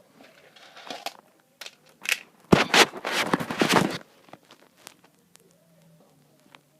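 Beads poured into a dish, clattering densely for about a second and a half a couple of seconds in, with scattered clicks before and after.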